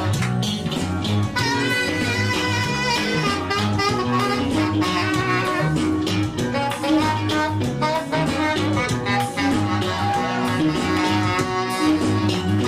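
Saxophone playing a melody with wavering held notes over live Eritrean dance-band backing with a steady low bass line and light percussion.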